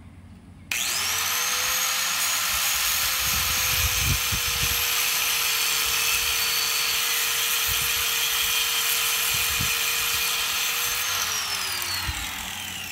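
Corded angle grinder spinning up suddenly, running at a steady pitch for about ten seconds while notching cement board, with a few knocks as the disc bites, then winding down with a falling pitch near the end.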